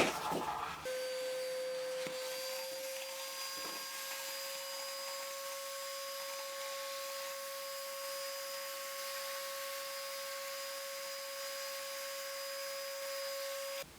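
Vacuum cleaner sucking through a homemade nozzle of a plastic cup with a drinking straw pushed into it. It gives a steady whine that starts about a second in, rises slightly in pitch as the motor spins up, then holds level and cuts off just before the end.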